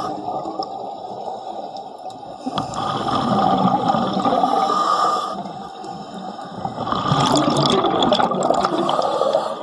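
Underwater bubbling from a diver's exhaled breath, in two long gushes starting about 3 and 7 seconds in, with quieter bubbling between.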